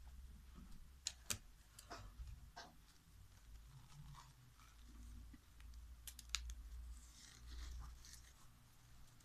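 Paper rustling and handling as a homemade tissue face mask with rubber-band ear loops is held and stretched. A few sharp clicks are heard: two close together about a second in, and a quick cluster about six seconds in.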